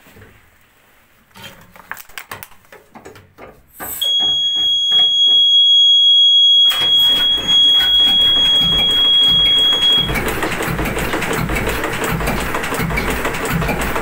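Old tugboat diesel engine being started. After a few clicks and knocks from handling the controls, a high, steady alarm tone comes on about four seconds in. The engine starts with a sudden loud rush about seven seconds in, and the alarm stops a few seconds later as the engine settles into slow, even running with a low regular beat.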